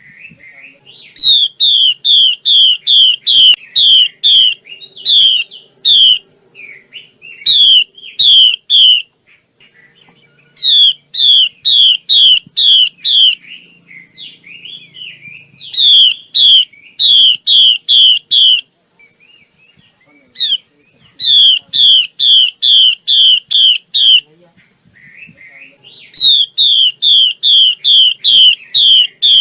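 Female Chinese hwamei (Garrulax canorus) singing: loud, clear whistled notes that each slur downward, repeated about three a second in runs of four to a dozen. Short pauses of softer, varied chatter fall between the runs.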